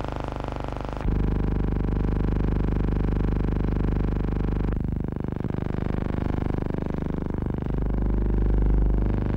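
A steady buzzing hum with many overtones, which changes in tone about a second in and again around the middle.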